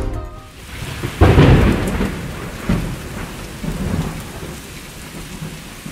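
Thunderstorm: steady rain with a loud thunderclap about a second in that rumbles on and fades, followed by further, weaker rolls of thunder.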